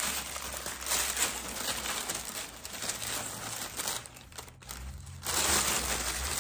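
Crumpled paper wrapping crinkling and rustling as it is handled and pulled open to get at a product, with a short lull about four seconds in before the crinkling picks up again.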